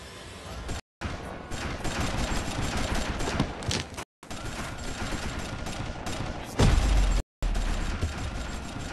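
Movie gunfight sound effects: dense, rapid gunfire going on almost without a break, with a heavy low boom about six and a half seconds in. The sound cuts out completely for an instant three times.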